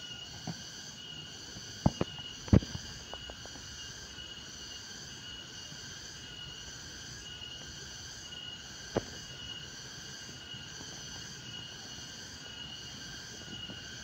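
Outdoor insect chorus: a steady, regularly pulsing high-pitched trilling. A few sharp clicks stand out above it, a cluster about two seconds in and one more near nine seconds.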